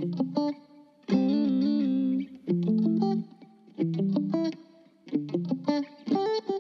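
Background music on guitar: short phrases of plucked notes with a held chord about a second in.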